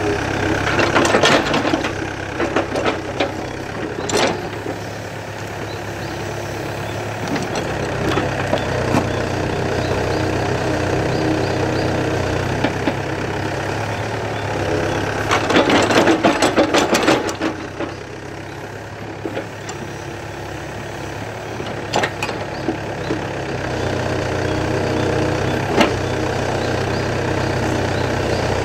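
Yanmar B7 mini excavator's diesel engine running steadily at working speed while the bucket digs into stony soil and roots, with bursts of clattering and scraping from the bucket, the longest about halfway through.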